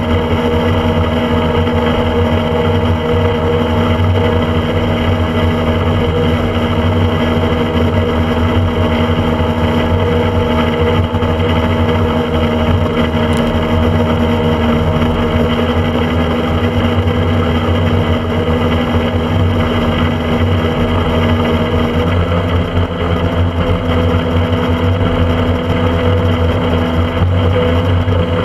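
Motorboat engine running steadily at speed, heard from on board with wind rushing past; its note shifts slightly about two-thirds of the way through.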